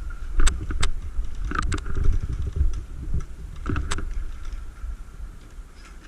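Low rumble of wind and movement on a body-worn camera microphone, with a few sharp clicks scattered through it.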